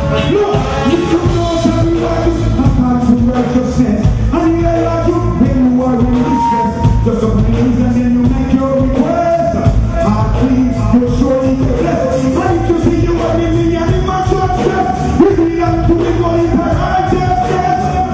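Live reggae band playing: drums, bass and electric guitar with a horn section, and a man singing into a microphone over it.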